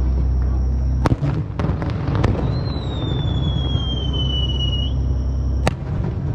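Fireworks going off: a continuous low rumble of booms with sharp cracks about a second in, a few more around two seconds, and one near the end. A high whistle slides slowly down in pitch for about two seconds in the middle.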